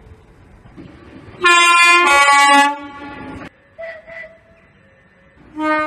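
Train's two-tone horn sounded once, a high note then a lower note, together just over a second and loud. Near the end another short horn blast begins.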